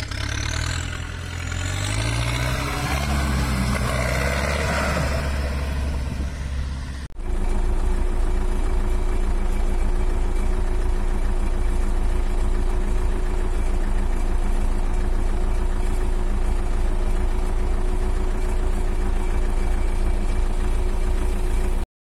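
Zetor tractor diesel engine running. For the first seven seconds or so the tractor drives across a field, its engine note shifting up and down. Then it is heard from inside the cab, running steadily at one constant speed until the sound stops abruptly near the end.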